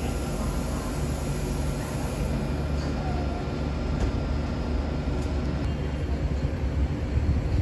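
Double-deck TGV Lyria trainset moving at walking pace along the platform as it closes on another TGV for coupling. Its electrical equipment gives a steady low hum with a faint high whine.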